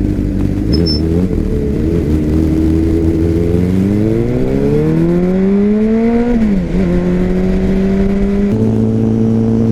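Motorcycle engine idling, then revved once about four seconds in: the pitch climbs smoothly for about two seconds and drops sharply back to idle.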